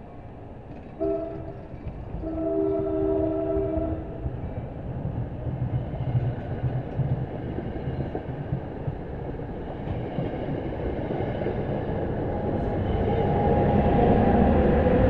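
A train horn sounds a chord twice, first briefly and then for about a second and a half. The horn is heard over the rumble and wheel noise of a New Jersey Transit passenger train's coaches rolling past close by. The rumble grows louder near the end.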